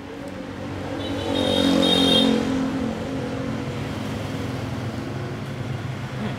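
A motor vehicle passing on the road: its engine sound swells to a peak about two seconds in, then fades into a steady traffic hum.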